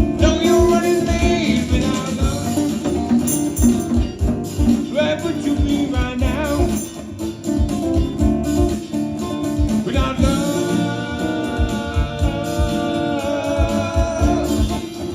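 Live band playing at a sound check: a singer's voice over guitar, bass and a steady drum beat.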